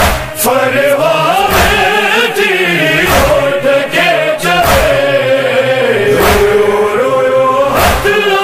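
A young male reciter chanting a Sindhi noha, a Shia lament, in long, wavering sung lines. Heavy beats fall every second or two under the voice.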